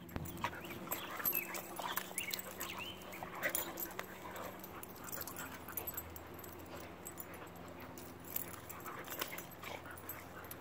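Dogs play-wrestling, with short vocal sounds and scuffling that are busiest in the first few seconds.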